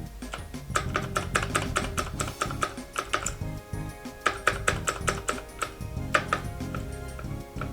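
Rapid keystrokes on a Keychron K6 mechanical keyboard with clicky Gateron Blue switches, in two quick runs, over background music.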